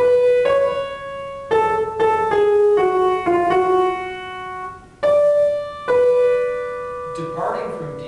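Piano playing a single-line melodic dictation excerpt: a rising half step from C sharp to D, then notes stepping downward. The phrase starts over about five seconds in.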